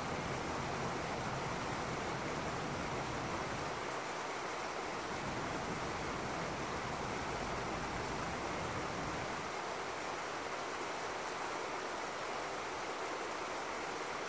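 Small woodland creek running over rocks in a little waterfall: a steady, even rush of water.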